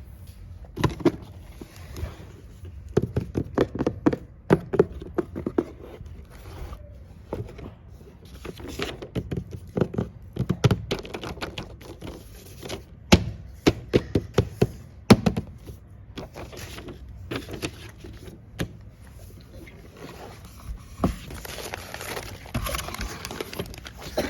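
A homemade paper blind bag being handled and opened: paper rustling and crinkling, broken by many irregular sharp taps and knocks, with a longer stretch of rustling near the end.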